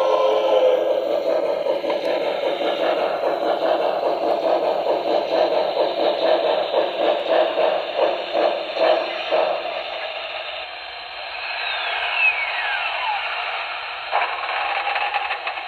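Sound system of a Broadway Limited Paragon2 HO-scale Pennsylvania Railroad 2-10-0 Decapod model locomotive, heard through its small onboard speaker: steam chuffs that slow and fade over the first ten seconds as the engine comes to a stand. Then a steady steam hiss, with a falling tone and a single click near the end.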